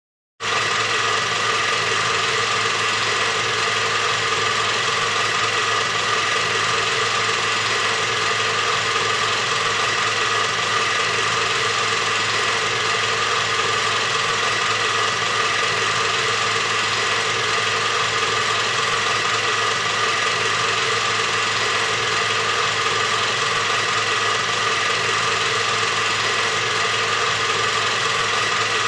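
A steady, unchanging machine running sound, like an engine or motor, starting about half a second in.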